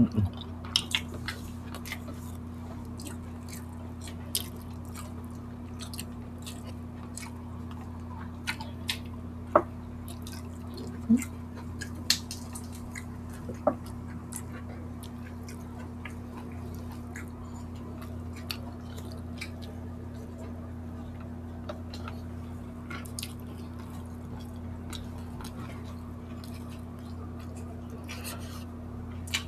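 Eating sounds of barbecued chicken eaten by hand: scattered wet clicks, smacks and chewing, with a few sharper clicks around the middle, over a steady low hum.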